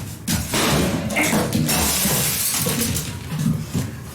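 A microwave oven being smashed: glass shattering and breaking, a noisy crash that starts about a quarter second in and goes on for a few seconds.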